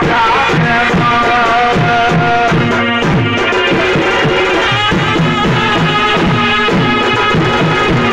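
Chhau dance music: fast, steady drumming with a held, reedy-sounding melody line above it.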